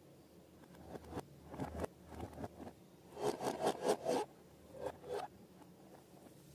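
Scraping and rubbing strokes from slime and balloons being handled, with a quick run of about six strokes midway and two more shortly after.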